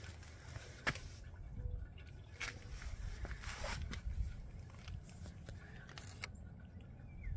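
Faint low rumble with a few scattered clicks and scuffs.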